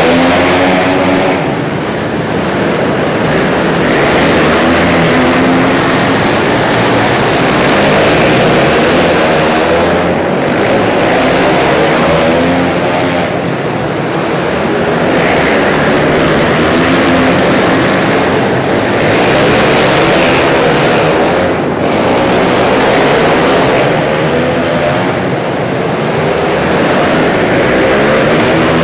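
Several flat track racing motorcycles on a dirt oval, engines revving up and down as the riders slide through the turns. The engine noise swells and fades every several seconds as the pack passes.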